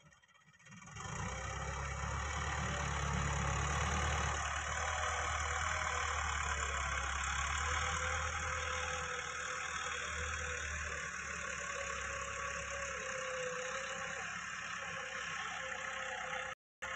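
Farm tractor's diesel engine running steadily as the tractor pulls a tillage implement through loose soil. It comes in about a second in, holds a steady note, and drops out briefly near the end.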